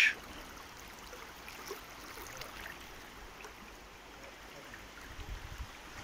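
Steady rush of fast-flowing river current. A brief low rumble comes in about five seconds in.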